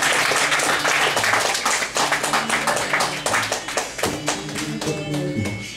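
Audience applauding, thinning out after about four seconds, while music with steady low notes comes in partway through and carries on.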